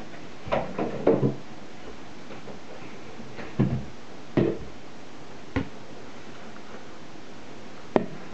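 A few scattered knocks and clunks, as of things being handled and set down, over a steady hiss: a quick cluster in the first second and a half, then single knocks every second or so, the last sharp one near the end.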